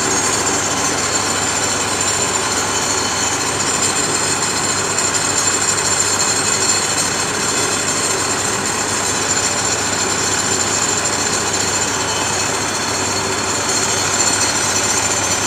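Concrete pump engine running steadily at a constant speed, with no change in revs.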